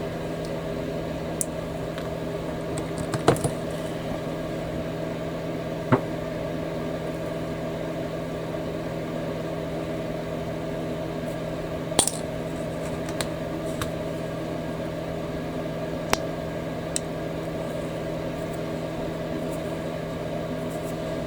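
Small plastic model-kit parts and tools clicking and tapping as a small box is fitted and glued together, a few sharp clicks scattered over a steady background hum.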